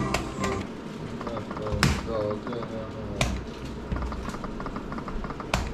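Buttons being pressed on a gambling machine: several sharp clicks, the loudest about two seconds in, over a fast, light ticking.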